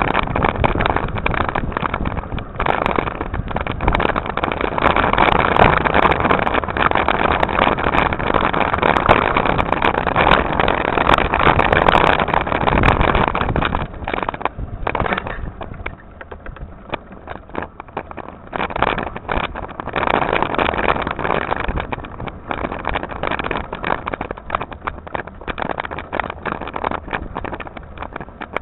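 Riding noise picked up by a camera mounted on a mountain bike: wind buffeting the microphone along with the tyres and frame rattling over a rough grass and dirt trail. It is loudest at first and turns lower and choppier from about fourteen seconds in.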